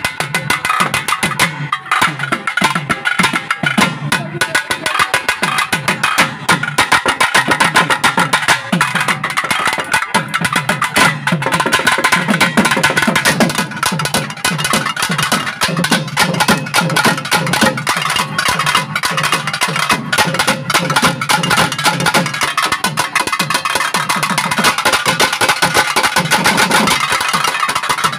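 Naiyandi melam folk band playing, led by fast, dense thavil drum strokes.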